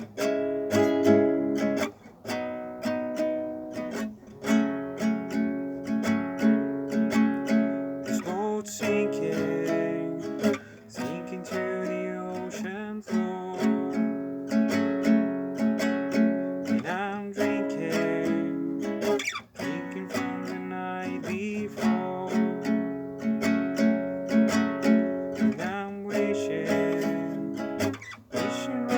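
Music: acoustic guitar strumming chords in a steady rhythm.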